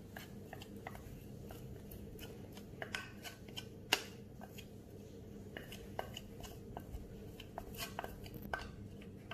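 Faint scattered clicks and taps of a plastic jug and glass mixing bowl being handled while thick condensed milk is poured slowly into beaten eggs, with one sharper tap about four seconds in, over a low steady hum.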